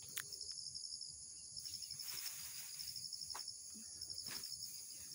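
Steady high-pitched trilling of insects, a finely pulsing buzz, with a few faint clicks or snaps scattered through.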